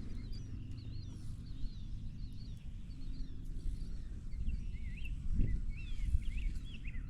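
Small birds chirping and calling in quick up-and-down notes, more often over the last couple of seconds, over a steady low rumble. A soft thump comes about five seconds in.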